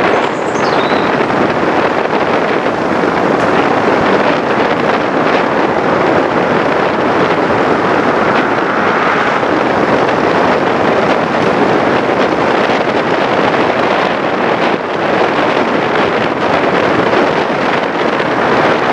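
Steady rush of road and wind noise from a car driving along a road.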